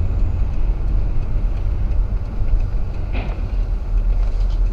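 Steady low rumble of a car driving, engine and road noise heard from inside the cabin through a dashcam's microphone.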